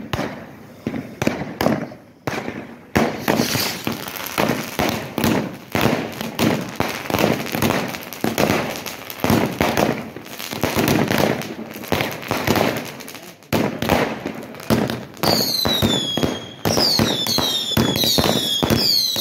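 A firecracker strip going off in a long, rapid, uneven chain of bangs. About three-quarters through, a run of falling whistles from whistling fireworks joins in, one after another.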